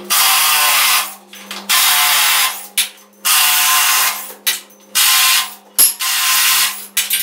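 Cordless drill run against timber ceiling framing overhead in five bursts of about a second each, with short pauses between, over a steady low hum.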